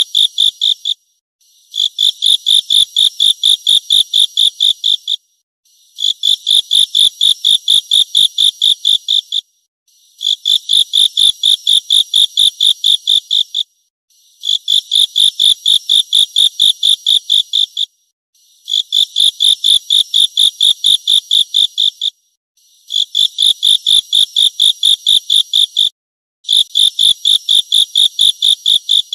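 An insect's high-pitched stridulating song, offered as a grasshopper's: bursts of rapid even pulses, about four a second, each burst lasting three to four seconds with a short pause between. The bursts repeat steadily, about seven of them in turn.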